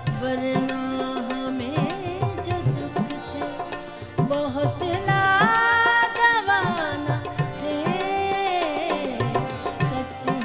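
A woman singing with tabla accompaniment, holding long notes and bending between them, with a loud sustained phrase about halfway through.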